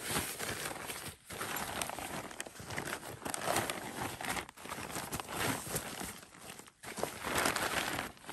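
Rustling and crinkling of a rolled tent being pulled out of its fabric carry bag and the bag being handled, stopping briefly three times.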